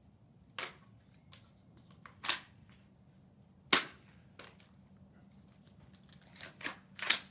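An AR-type rifle giving about six sharp cracks or clacks spread over several seconds. The loudest comes about halfway through, and a quick cluster comes near the end. The rifle has been malfunctioning, which the instructor thinks could be magazines not fully inserted.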